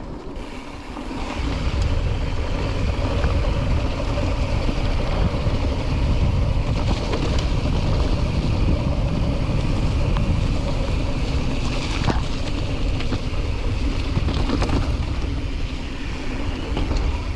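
Wind rumbling on the microphone and tyre noise from a mountain bike being ridden along a slippery dirt trail, rising over the first couple of seconds and then steady.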